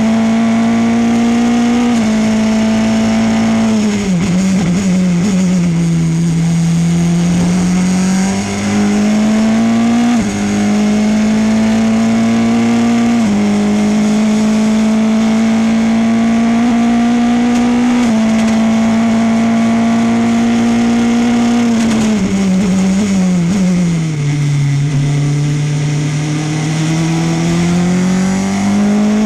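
Formula Renault 2.0 race car's 2.0-litre four-cylinder engine heard close from the car at speed: the pitch climbs under full throttle with quick drops at several upshifts, falls away twice under braking for corners, and climbs again as the car accelerates out.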